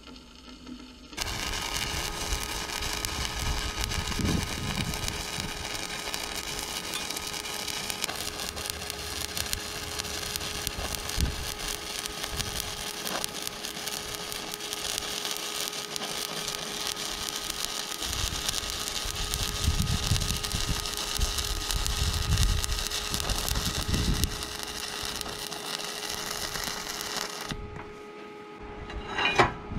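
Stick (shielded metal arc) welding on steel plate: the arc crackles and sizzles steadily from about a second in, then breaks off shortly before the end, followed by a few sharp knocks.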